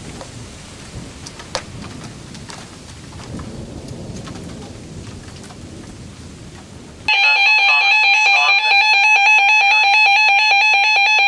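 Rain with thunder rumbling. About seven seconds in, a weather radio's warning alarm cuts in abruptly and sounds loud and steady through its small speaker: the alert for a tornado warning.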